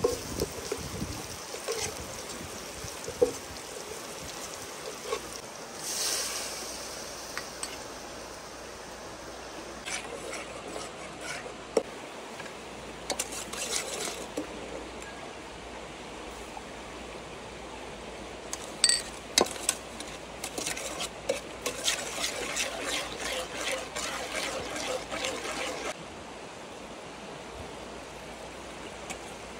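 Metal ladle clinking and scraping in a steel pot as it stirs chopped chilies and garlic, with liquid poured in. Near the end the pot's contents sizzle and bubble as they heat.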